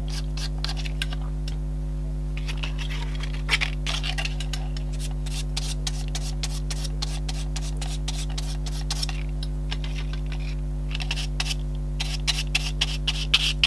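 Stiff-bristled brush dabbing and scratching texture paste onto kraft paper, in several bursts of quick scratchy strokes, over a steady low electrical hum.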